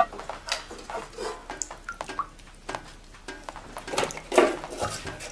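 Metal cooking pots clanking as they are set down on a floor to catch water leaking in. There is a sharp clank right at the start, scattered knocks, and a louder clatter about four seconds in.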